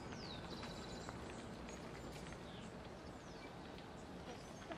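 Juvenile checkered woodpecker calling to be fed: a high descending note followed by a short fast rattle, then another high descending note about three seconds in. A steady low rumble lies under it.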